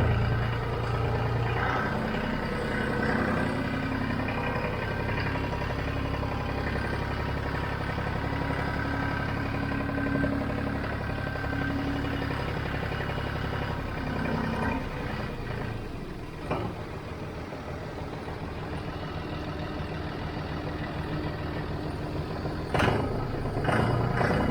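Massey Ferguson 1105 tractor's six-cylinder Perkins diesel running steadily at idle, with a couple of sharp knocks in the second half.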